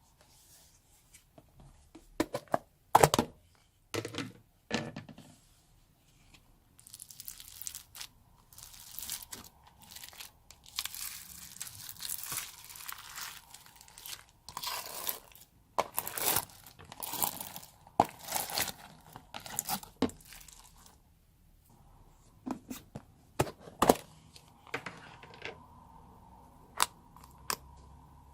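Slime being mixed with crunchy foam beads: irregular sticky pops, snaps and crinkly crackling. A few sharp loud snaps come early, a busy stretch of crackling fills the middle, and scattered clicks follow near the end.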